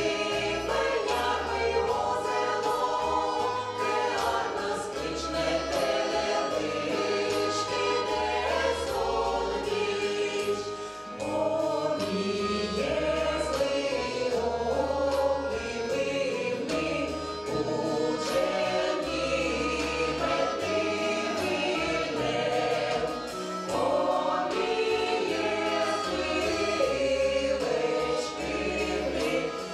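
A Komi-language folk song sung by a folk choir with band accompaniment, sung melody over drums, keyboard and a changing bass line.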